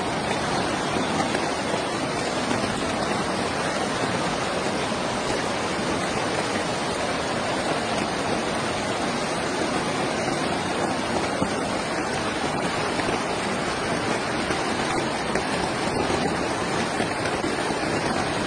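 Fast-flowing muddy floodwater rushing along a street in a strong current: a steady, unbroken noise of water.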